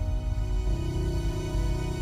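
Soft, slow show music: a held chord over a deep low drone, changing to a new chord less than a second in.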